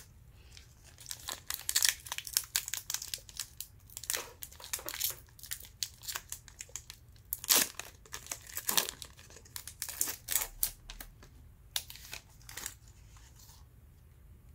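Panini Hoops trading card pack wrapper being torn open by hand, crinkling and tearing in a dense run of sharp, irregular crackles that stops near the end.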